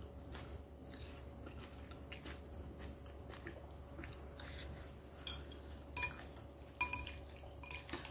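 Faint chewing of a mouthful of noodles. From about five seconds in, a metal spoon and chopsticks clink against the noodle bowl several times in sharp, ringing clinks.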